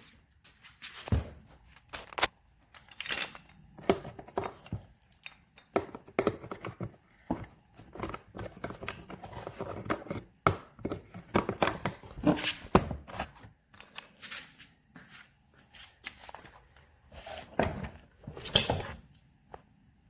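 Irregular clicks, knocks and rustling of things being handled, with no motor running.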